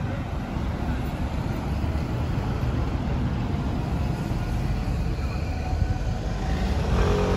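Road traffic passing beside the pavement: a steady low rumble of cars and a bus. A person's voice is heard briefly near the end.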